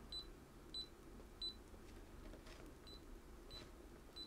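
KAIWEETS KM601 multimeter beeping in non-contact voltage detection mode: faint, short, high beeps about every two-thirds of a second, with a pause midway, signalling that it senses a live (hot) wire.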